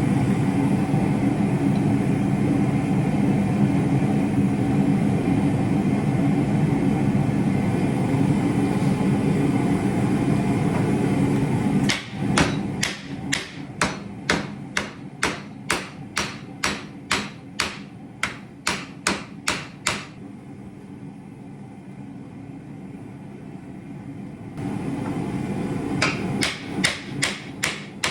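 A steady loud rushing noise for about twelve seconds, then a hand hammer striking metal on an anvil in an even run of blows about three a second. The blows stop for a few seconds, the steady noise comes back, and the hammering starts again near the end.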